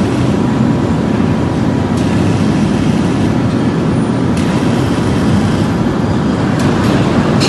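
Loud, steady deep rumble of heavy forge shop machinery, with a faint steady high tone running through it.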